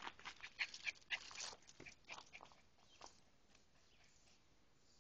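Dog making a quick run of short, faint, high-pitched sounds, several a second, that stop about three seconds in.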